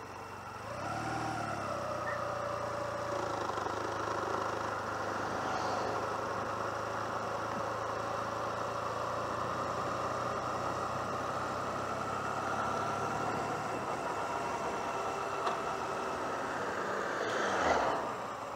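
1996 Honda CMX250C Rebel's 234 cc parallel-twin engine pulling away about a second in, then running steadily along the road. A brief louder swell with a falling pitch comes near the end.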